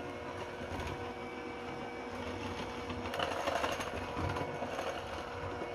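Electric hand mixer running steadily, its beaters whisking thin liquid batter in a glass bowl, a little louder from about three seconds in.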